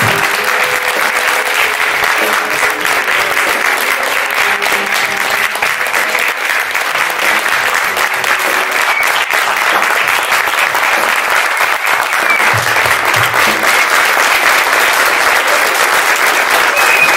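Audience applauding, a dense steady clapping that keeps an even level.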